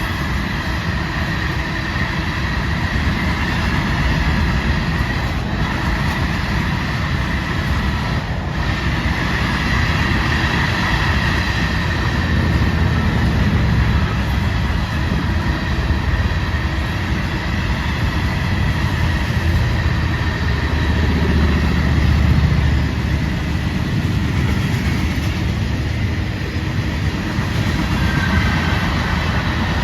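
Florida East Coast Railway freight train rolling past, its cars' wheels rumbling steadily on the rails, with a faint high ring from the wheels.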